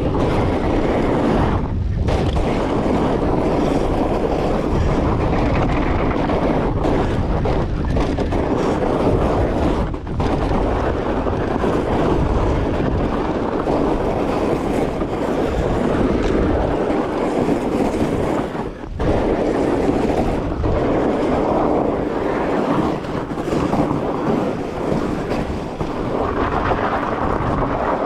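Wind buffeting the camera microphone along with the rumble of a fat bike being ridden down a trail: a steady, loud rushing noise with a few brief dips.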